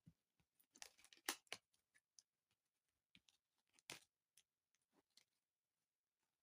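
Faint, irregular clicks and taps of tarot cards being handled.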